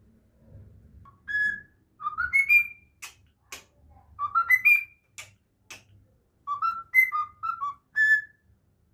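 Cockatiel whistling short phrases of notes that step upward in pitch, four phrases with pauses between them. A few sharp clicks fall between the phrases in the middle.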